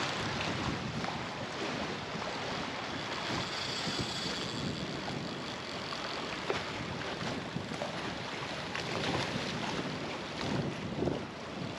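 Strong wind buffeting the microphone: a steady rushing noise with gusty swells.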